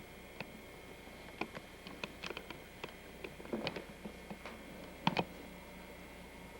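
Scattered light clicks and taps, irregular and unevenly spaced, from kittens moving and playing about in their cage, with a small cluster just past the halfway point and a sharp double tap near the end, over a steady low hum.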